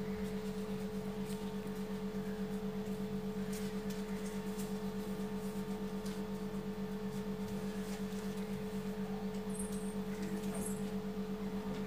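Faint sizzling of oil as biscuit-dough gulab jamun balls deep-fry in an aluminium kadai, under a steady low hum with a slight regular pulse; a few light clicks of a metal spoon against the pan in the first few seconds.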